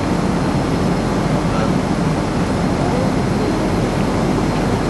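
Airliner cabin noise: the steady, even drone of the engines and rushing air, heaviest in the low end.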